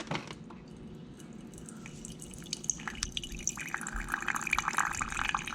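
Refrigerator door water dispenser running a thin, slow stream of water into a cup, trickling and dripping, getting louder about three seconds in. The weak flow is the sign of low water pressure from a saddle-valve supply line.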